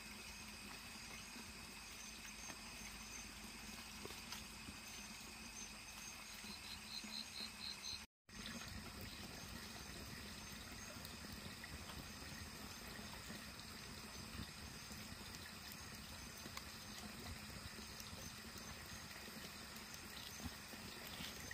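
Small wood campfire burning with faint crackles and hissing, a fish roasting on a stick over the flames, over a steady high-pitched background tone. The sound cuts out for a moment about eight seconds in.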